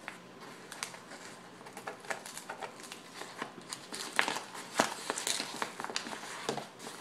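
Scissors snipping through a plastic mailing envelope: irregular sharp snips of the blades with crinkling of the packaging, the loudest snips a little past the middle.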